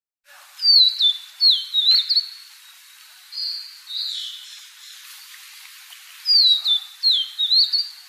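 Sumatran niltava singing: a short phrase of three or four clear whistled notes that slide down and then up, given twice, with a couple of flatter whistles in between.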